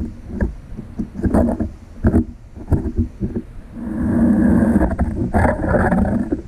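Nero ice augers, 130 mm then 150 mm, breaking through the last of the ice, heard underwater through a GoPro's built-in microphone: a run of sharp cracks and knocks as the auger flight breaks off the remaining ice edges, with a longer grinding rumble about four seconds in. The larger the auger, the more of these noises, which scare the fish below.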